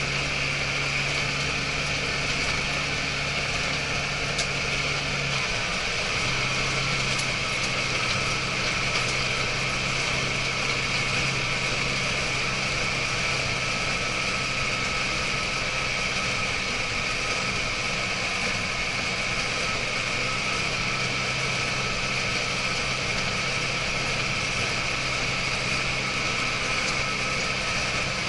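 Iseki TJV semi-crawler tractor running along a road, its diesel engine droning steadily together with a constant higher whine from the drivetrain and half-track crawlers, a crawler noise that the owner finds a little worrying. The engine note dips and picks up again about five seconds in.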